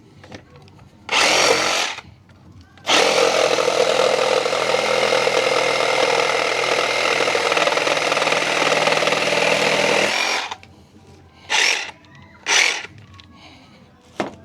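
DeWalt DCS367 18V cordless reciprocating saw cutting through wood: a brief burst about a second in, then a steady cut lasting about seven and a half seconds. Two more short bursts follow near the end.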